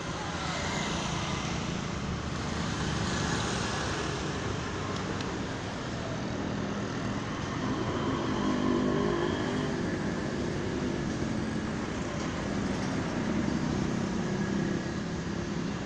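Steady street traffic noise, with low vehicle engine hum swelling as vehicles pass, about halfway through and again near the end.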